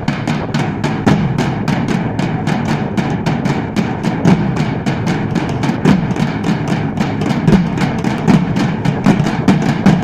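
A group of large steel-shelled drums beaten together with sticks in a fast, steady rhythm, about five or six strokes a second, with deep drum beats under sharp stick hits.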